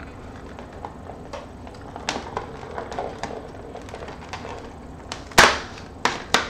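Cardboard door of a chocolate advent calendar being picked at and pried open by fingers: a run of small crackles and scratches, then a sharp crack about five and a half seconds in and two shorter snaps near the end.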